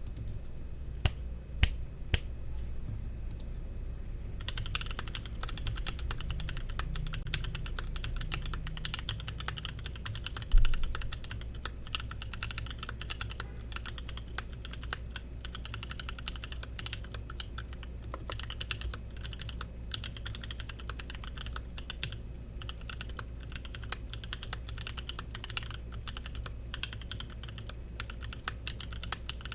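Custom 60% mechanical keyboard with 67 g tactile switches, PBT doubleshot keycaps, a carbon fibre plate and an aluminium case being typed on. A few single keystrokes come first, then steady fast typing from about four seconds in, with one much louder thump about ten seconds in.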